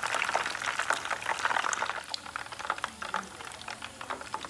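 Turkey pieces deep-frying in hot oil in a pot: a dense crackling sizzle that drops to a quieter crackle about halfway through.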